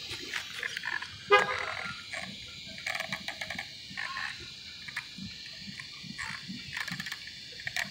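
Handling of a WLtoys 12428 RC truck: a sharp knock about a second in, then faint irregular plastic clicks and rattles as its wheels are turned by hand to check the rear differential, which has stripped.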